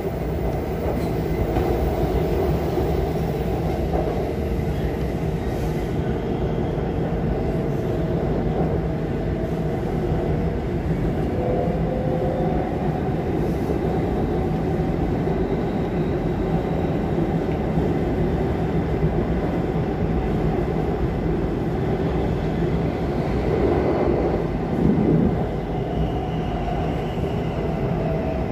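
Bangkok MRT Blue Line metro train heard from inside the carriage while running: a steady rumble with faint tones that drift slightly in pitch, swelling a little near the end.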